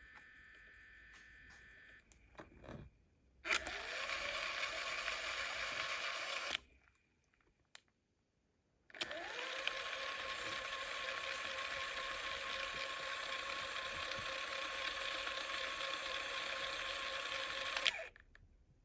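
A small electric motor spins up with a short rising whine and runs steadily for about three seconds, then stops. A few seconds later it starts again the same way and runs steadily for about nine seconds before cutting off. A few clicks come just before the first start.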